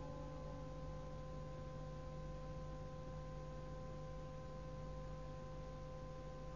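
Faint steady hum and hiss of a cassette-tape recording, with a few thin steady tones under it, in the silence between verses of a Quran recitation.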